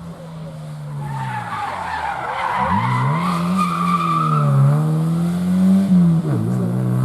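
Rally car's engine under hard throttle, the revs falling and climbing again several times, while its tyres squeal and skid through a drift in the first half.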